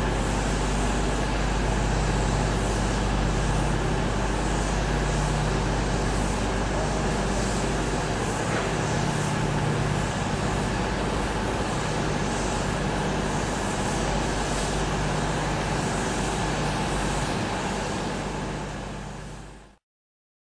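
Steam hissing steadily from LMS Stanier Black 5 No.44932, a two-cylinder 4-6-0 steam locomotive, wreathed in its own steam. The sound cuts off abruptly just before the end.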